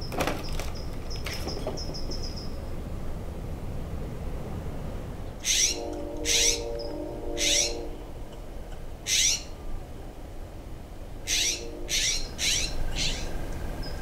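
California scrub jay giving a string of short, harsh calls, about eight of them over the second half, scolding a squirrel at the feeder.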